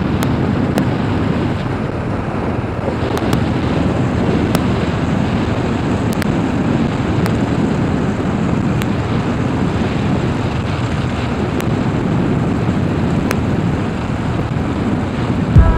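Steady wind rush on the microphone of a Kawasaki KLR 650 riding along a gravel road, over the bike's engine and its tyres rolling on the gravel.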